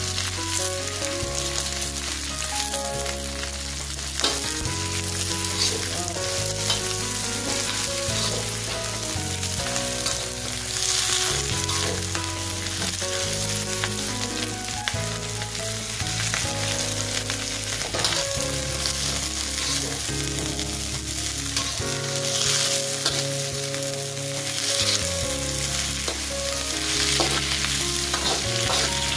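Bok choy stir-frying in an aluminium wok: hot oil sizzles steadily while a metal spatula stirs and scrapes the greens, with a few sharper knocks of the spatula on the wok.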